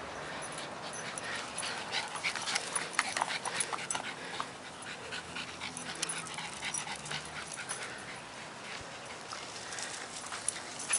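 Two small dogs panting and scuffling as they chase each other, with many short sharp ticks, thickest between two and four seconds in.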